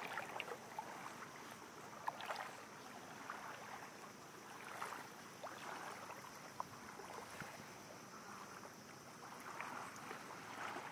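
Faint water sounds of feet wading slowly through shallow water over sand: a soft, even swish with scattered small ticks.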